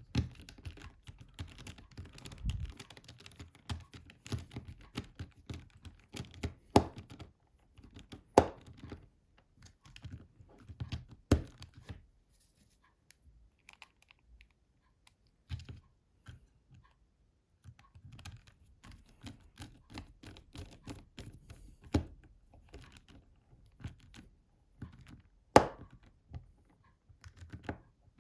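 Small clicks, taps and scrapes of a Nokia 5220 XpressMusic's plastic housing being handled and screwed together with a small screwdriver as the last two screws go in, with a few sharper clicks scattered through.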